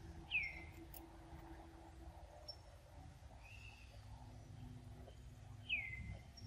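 Two short high-pitched squeaks that fall in pitch, one just after the start and one near the end, with a softer squeak between them, over faint forest background.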